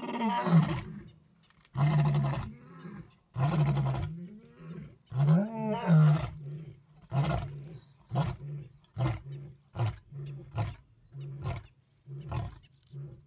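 Male lion roaring: four long, loud roars in the first six seconds, then a series of shorter grunting roars at a steady pace of about one every 0.7 seconds, growing gradually weaker, the typical close of a lion's roaring bout.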